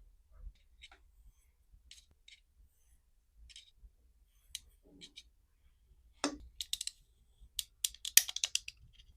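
Scattered small clicks and crackles of handling, sparse at first, then coming thick and fast in the last three seconds.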